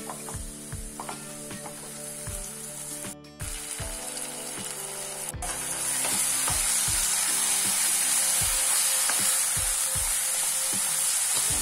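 Vegetable masala sizzling in oil in a nonstick kadai while a spatula stirs and scrapes it, with repeated short knocks of the spatula against the pan. The sizzling gets louder about halfway through.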